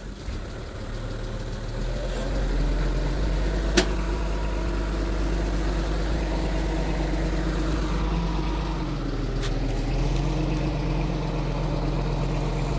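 Mitsubishi G2 bulldozer's diesel engine running steadily; it gets louder about two seconds in, and there is a single sharp click a little before the four-second mark.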